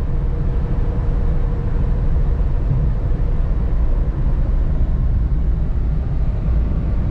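Steady engine and road noise heard inside the cabin of a 2017 Nissan Sunny XL diesel sedan cruising on a highway.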